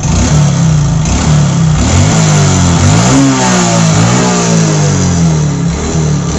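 Old Hero Honda single-cylinder four-stroke motorcycle engine running in neutral, revved up and down a couple of times in the middle and settling back to idle. The mechanic takes the noise for a seized or worn piston together with a worn crankshaft, in an engine that smokes white and burns oil.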